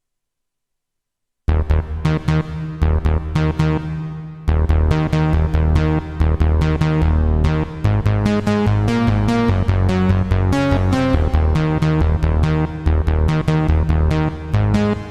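Roland D-05 Boutique synthesizer, a compact D-50, playing one of its patches with no added effects. A quick run of sharp-attack notes sounds over a bass line, starting suddenly about a second and a half in after silence.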